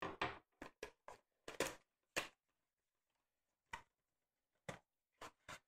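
Small cardboard miniatures box being opened and emptied: a string of short scrapes and clicks from the cardboard flaps, a folded paper leaflet and a plastic sprue being handled. The clicks come close together for the first two seconds or so, then only a few scattered ones.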